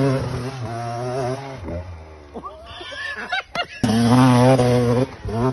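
Off-road dirt bike engines on a steep hill climb. One engine is held at steady high revs, then drops away about a second and a half in, with revs rising and falling. Near the four-second mark a second bike opens up loudly and holds high revs as it launches up the slope.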